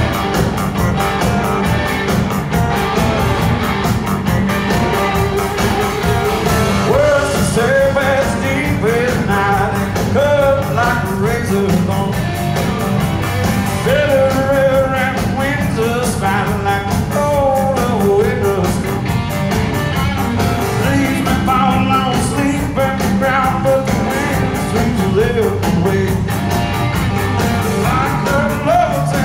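Live rock band with electric guitar and a sung vocal line, playing loud and steady through an arena's PA, heard from the audience floor.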